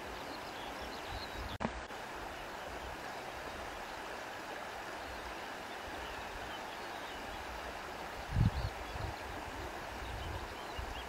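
Steady rush of flowing river water, with a few faint high chirps over it. A short click comes about a second and a half in, and brief low rumbles about eight seconds in are the loudest sound.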